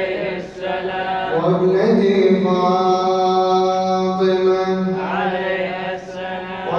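A man's voice chanting a mawlid recitation into a microphone in long, held, ornamented notes that glide between pitches, with brief breaks about half a second in and again near the end.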